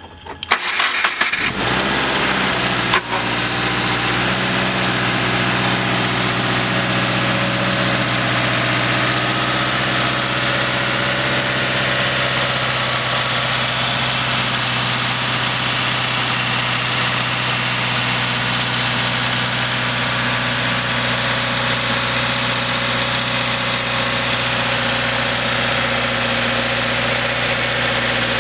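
Subaru Impreza's FB20 2.0-litre flat-four engine, fitted with an Injen cold air intake, being started: it cranks and catches within the first second or two, then idles steadily. There is a single click about three seconds in.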